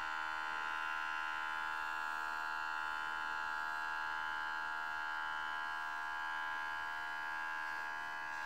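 Cordless airbrush compressor running with a steady motor whine, with air hissing out of the airbrush as it sprays paint continuously with the trigger held down.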